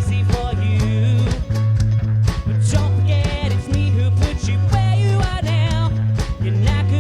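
Ukulele band playing live: strummed ukuleles over a steady bass line and beat, with sustained wavering notes above.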